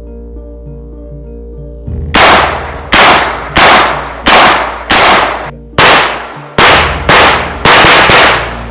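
Rapid fire of about ten shots from an AR-style .410 semi-automatic shotgun, each with a short echoing tail, coming faster near the end, over background music.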